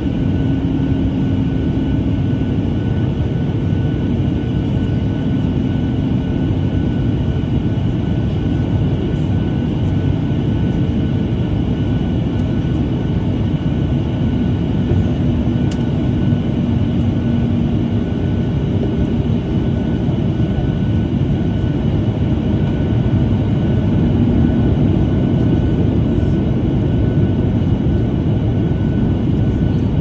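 Jet airliner cabin noise heard from a window seat: a steady rush of engines and airflow, with a thin steady whine on top and a low drone that drifts slightly in pitch.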